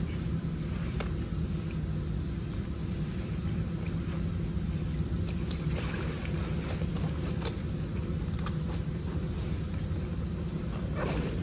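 Steady low rumble and hum of the tiled pool room, with faint rustling and a few soft clicks as a wet drysuit is pulled off the legs.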